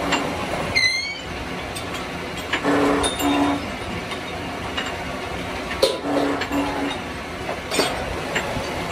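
Metal-working machine running with a steady mechanical rumble, broken by short metallic knocks and clanks and a brief hum that recurs about every three seconds. A short high squeak comes about a second in.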